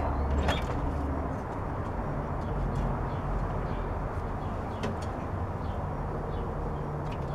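1959 Edsel Ranger's 292 V8 idling steadily while warming up after a cold start, with a few sharp clicks; the engine has an exhaust leak.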